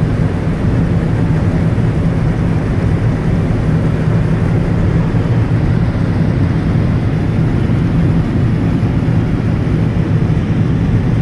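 V8 engines of NASCAR stock cars, the No. 52 car among them, idling steadily and loudly with no revving.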